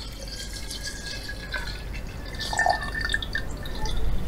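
40% wheat spirit being poured into a jar over viburnum berries in syrup: a continuous pouring and splashing of liquid that grows louder toward the end.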